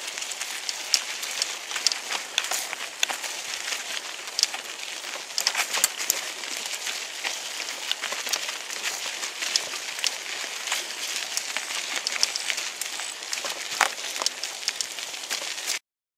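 Bicycle tyres rolling over dry, burned leaf litter and pine needles on a sandy trail: a continuous crackling hiss full of small clicks and snaps. It cuts off suddenly near the end.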